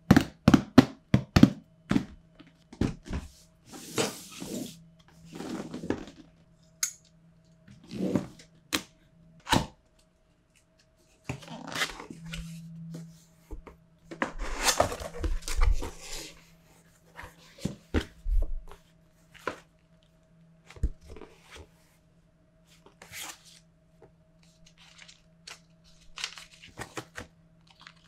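Hands handling a cardboard product box: repeated taps and knocks on the box, with cardboard sliding and rustling as the sleeve comes off and the box and its papers are opened. A faint steady hum runs underneath.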